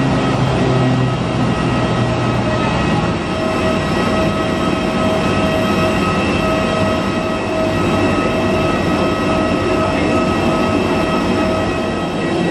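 Steady mechanical drone with a constant whine running through it; a lower hum underneath fades out about three seconds in.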